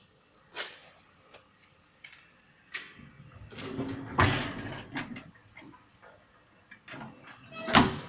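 Fagor LVC-21 dishwasher being handled: a string of clicks and knocks, a longer sliding scrape in the middle, and a loud knock near the end.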